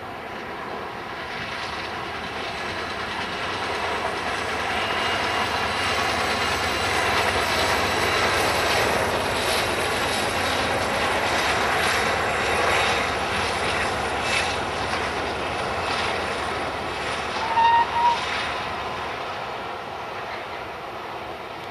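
LNER Class K4 steam locomotive No. 61994 The Great Marquess, with a diesel locomotive coupled behind it, hauling a passenger train past. The sound of the engines and coaches builds up, is loudest around the middle and fades as the train goes away. Two short loud sounds with a brief high tone come near the end.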